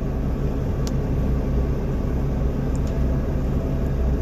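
Semi-truck's diesel engine idling steadily: a low, even rumble and hum.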